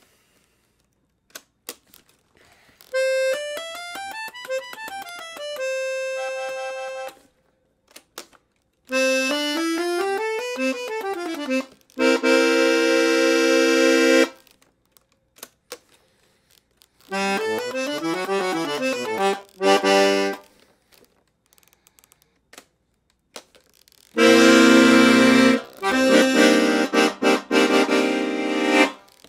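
Bass side of a La Melodiosa Model 70 piano accordion (120 bass buttons, 5 reed sets) played on its own. Three short runs go up and back down the bass buttons, each followed by a held note or chord, with short pauses between, and each run sounds with a different tone. A loud, full held chord near the end is the loudest part.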